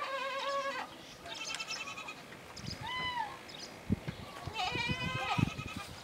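Cranes calling from a field: about four loud, trumpeting calls, each under a second long. The one near the middle rises and falls in pitch.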